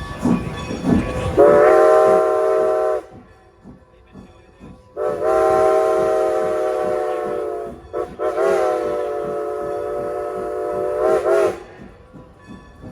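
Steam locomotive No. 90's chime whistle blowing three long, loud blasts, the last one wavering briefly before it stops, as the train approaches a road crossing.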